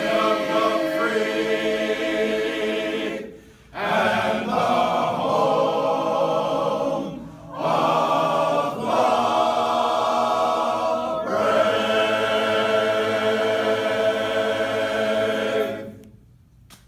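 Men's a cappella chorus singing a patriotic song in held chords, in long phrases broken by two short pauses; the last chord ends near the end.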